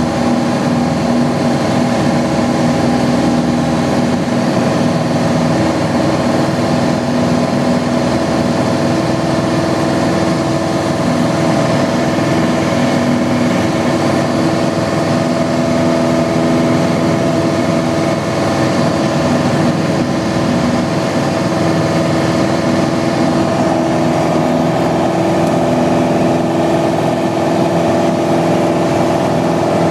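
Piper Archer II's four-cylinder Lycoming engine and propeller at full takeoff power, heard from inside the cockpit: a loud, steady drone through the takeoff roll, liftoff and initial climb.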